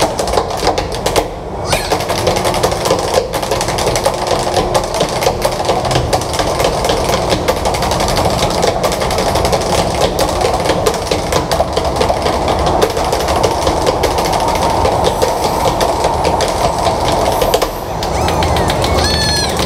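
Tap shoes striking wooden boards in fast, continuous rhythmic taps from two dancers, over a steady rumble of subway station noise.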